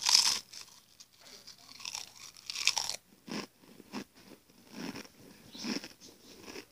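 A mouthful of Pringles potato crisps being bitten and chewed up close: a loud crunch at the first bite, then irregular crunching as they are chewed down.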